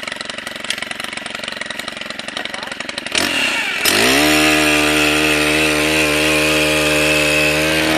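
Petrol post-hole auger's small engine running, revving up about three seconds in and holding a steady high speed while it digs a planting hole, then dropping back at the end.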